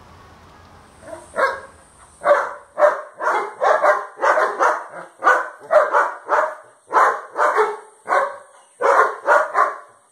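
German Shepherd barking repeatedly, about two barks a second in short runs with brief pauses, starting about a second in.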